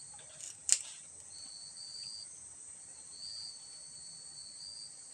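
Insects, crickets or cicadas, trilling steadily in a high-pitched chorus, with a second trill coming and going. A single sharp click sounds about a second in.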